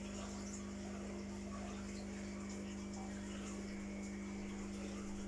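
Aquarium filter pump running: a steady low hum with faint trickling and bubbling water.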